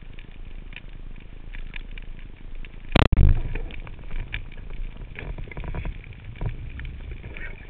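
Underwater sound heard through a camera housing: a steady low rumble of water with scattered faint clicks and crackle, and about three seconds in a single loud sharp knock followed by a churning rumble.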